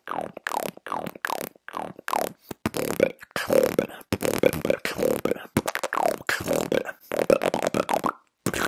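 A fast rhythmic beatbox pattern built on lip rolls: sharp pops and clicks mixed with buzzing lip-roll notes, several of which fall in pitch. It is made into an earbud-cord microphone held at the lips, and breaks off briefly just before the end.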